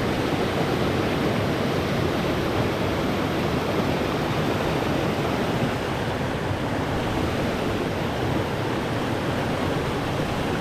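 Stream water pouring over a low concrete weir below a small dam: a steady, unbroken rush of falling water.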